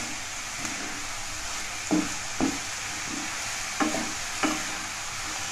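Chopped vegetables, cabbage just added, sizzling in butter and oil on a medium flame while being stirred, with four short knocks of the spatula against the pan about two and four seconds in.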